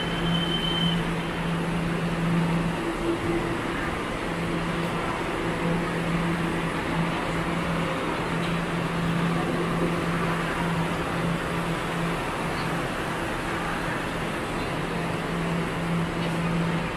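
Road traffic noise: a steady rush of passing vehicles, with a low engine hum that drops out now and then.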